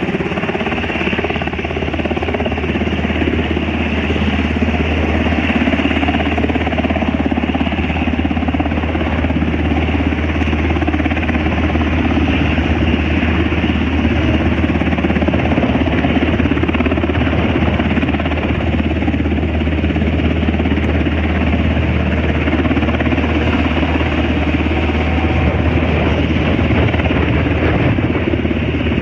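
MH-60T Jayhawk helicopter's rotors and twin turboshaft engines running: a loud, steady mechanical noise with a strong low hum.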